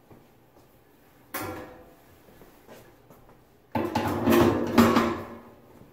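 A thin sheet-steel cooktop cover being swung down and set in place. It makes one sharp metallic clank about a second in, then rattles and bangs against the frame for a couple of seconds near the end.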